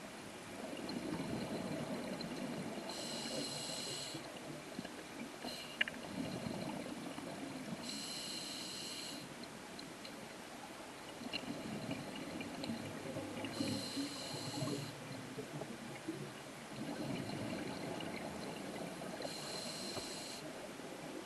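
Scuba diver breathing through a regulator underwater: four short hissing inhales, about five and a half seconds apart, alternating with longer bubbling exhales.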